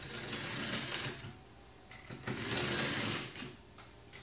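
A blade being drawn through cardboard along a yardstick: two long cutting strokes of about a second each, the second starting about two seconds in.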